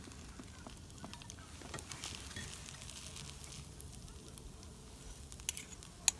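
Pepper rice sizzling and crackling faintly in a hot pan, with a few sharp clicks near the end.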